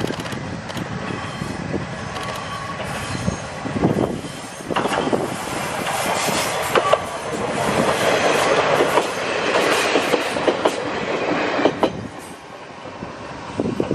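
Two-car Kominato Railway KiHa 200-series diesel railcar set running past, its wheels clicking over the rail joints. The sound builds as the railcars come close, is loudest a little after they pass, then falls away sharply near the end.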